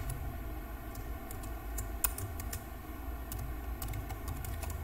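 Keystrokes on a computer keyboard: irregular clicks of someone typing a word, a few keys at a time with short pauses, over a steady low hum.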